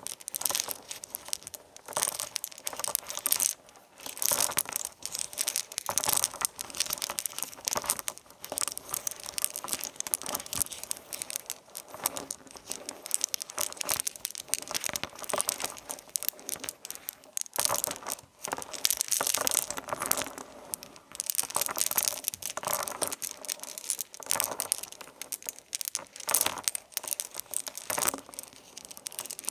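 Continuous irregular crinkling and crackling, like a thin material such as paper or plastic being crumpled and handled, with a few short pauses.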